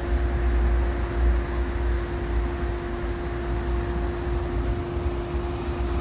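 Steady low rumble of traffic and idling vehicles, with a constant even-pitched machine hum running through it.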